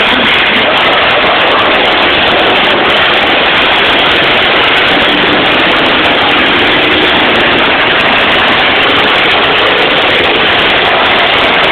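Engines of several demolition derby cars and pickups running hard in the arena, a loud steady din with no let-up.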